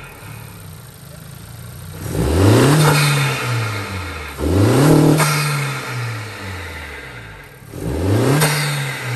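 Honda Civic Si's turbocharged 1.5-litre four-cylinder breathing through a K&N cold air intake, idling and revved three times. Each rev climbs quickly and falls back to idle over a couple of seconds.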